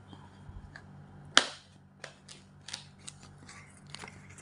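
A white cardboard electrode box being opened: one sharp snap about a second and a half in, followed by lighter clicks and rustles of the cardboard being handled.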